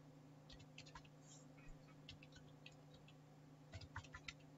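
Faint computer keyboard keys clicking: scattered single keystrokes, then a quicker run of them near the end, over a low steady hum.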